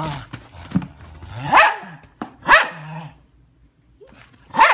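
Dogs play-fighting, a 10-week-old German shepherd puppy with a larger shaggy dog. A growl comes at the start, then three sharp, high-pitched barks.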